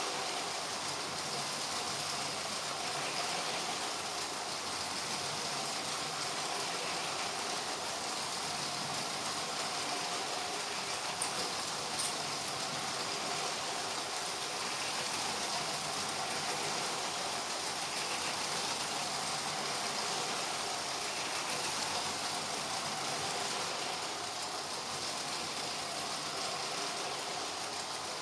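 LEGO trains running around plastic track: a steady whir of small electric motors and rolling wheels, with two short clicks about eleven and twelve seconds in.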